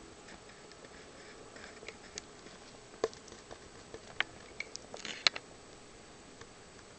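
Cockatiel pecking and nibbling at an egg held in a hand, making irregular small clicks with its beak. The clicks cluster from about three seconds in, the loudest just after five seconds.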